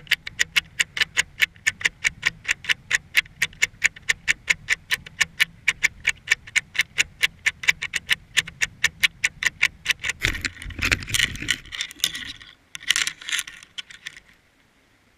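Underwater sound picked up by a GoPro in its waterproof housing about 200 feet down: an even train of sharp clicks, about five a second. About ten seconds in, two stretches of louder scraping and knocking follow.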